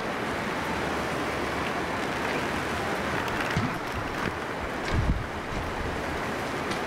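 Heavy rain pouring steadily onto bush, a dense even hiss. Two short low thumps of wind on the microphone come about three and a half and five seconds in.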